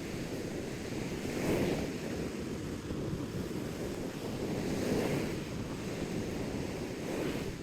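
Surf washing onto the beach, swelling up twice, about a second and a half in and again around five seconds, over a low rumble of wind on the microphone.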